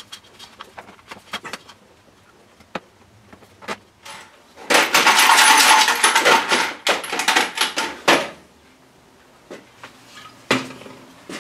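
Small metal parts clattering and jingling as a hand rummages through a small drawer of a parts cabinet, a dense rattle lasting about three and a half seconds in the middle, with light clicks and knocks of handling before and after.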